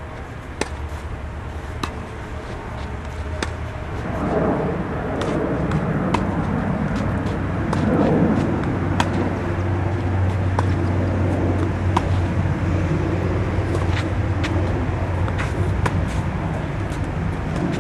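Tennis ball struck back and forth by rackets in a rally, sharp pops roughly every second or two. Under them is a steady low rumble that gets louder about four seconds in.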